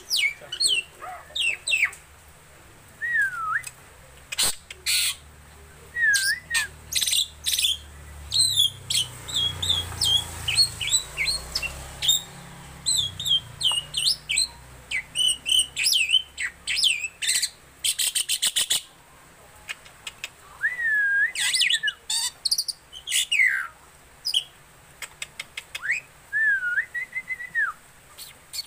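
Black-winged myna (jalak putih) singing a long, varied song of harsh clicking notes mixed with whistled notes that glide up and down, in quick phrases with short pauses between them.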